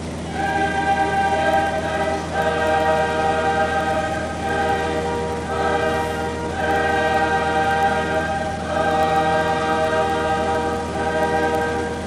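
Choral music: a choir holding sustained chords that change every second or two, over the steady low drone of a light aircraft's engine and propeller.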